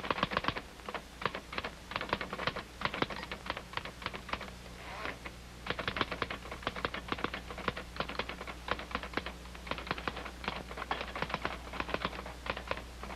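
Manual typewriter keys clacking in a rapid, uneven run, over a faint steady low hum.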